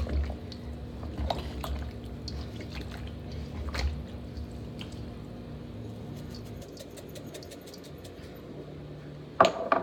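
Hands squishing and kneading raw chicken thighs in a stainless steel bowl, working seasoning into the meat, with small wet clicks and smacks. A brief louder knock near the end.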